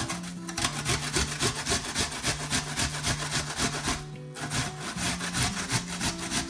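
Onion being grated on a metal box grater: quick rasping strokes, several a second, with a short pause about four seconds in.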